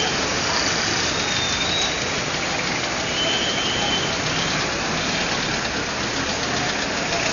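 Busy city street traffic: car and small truck engines running under a steady wash of noise, with a few brief faint high tones.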